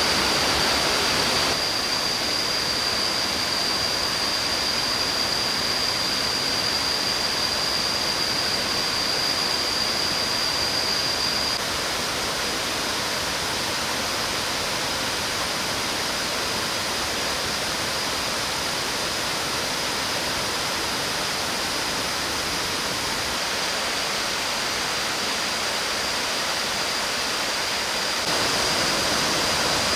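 Tiered limestone waterfall running full with rainy-season flow: a steady rush of falling water, with a thin, steady high whine above it. The level steps down slightly a couple of times.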